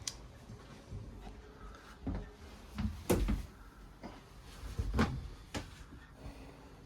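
Cupboard doors in a small cabin being opened and shut: a series of wooden knocks and thumps, the loudest about three seconds in and again about five seconds in.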